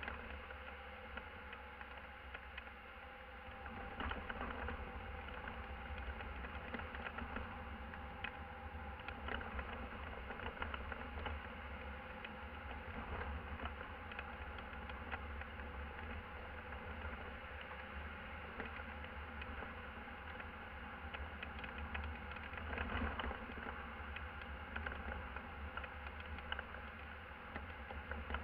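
Van cab interior while driving: steady engine and road noise with a low rumble and an even drone, and scattered light clicks and rattles.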